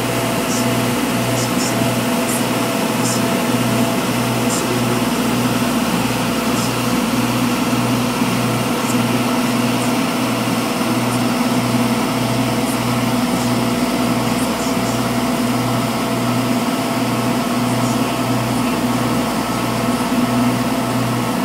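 Passenger boat's engine running steadily at cruising speed, a constant drone with a low throb beating about twice a second, over the rush of the churning wake.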